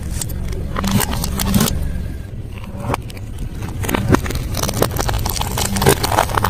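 Close-miked chewing of crunchy food: a quick run of sharp crunches and crackles over a steady low hum.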